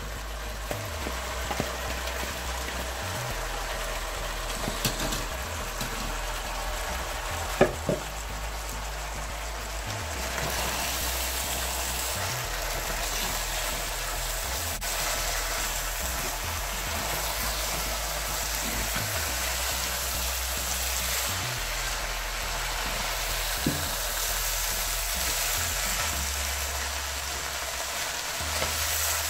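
Rice, lentils and chopped vegetables sizzling as they fry in oil in a pot, stirred with a wooden spatula. The sizzle grows louder about ten seconds in, and a few sharp knocks come in the first few seconds.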